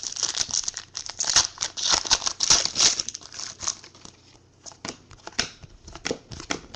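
A foil trading-card pack wrapper crinkling and tearing open, dense for the first three seconds, followed by scattered light clicks and rustles of cards being handled.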